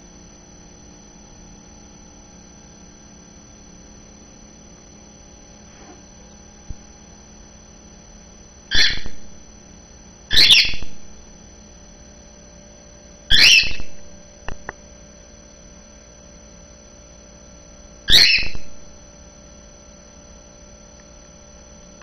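Cockatiel giving four short, loud calls, spaced a few seconds apart, in the second half.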